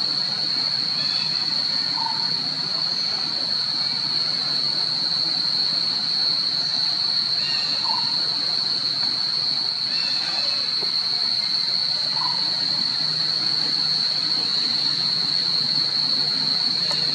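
Cicadas droning in one steady, unbroken high-pitched shrill, with a few faint short chirps over it.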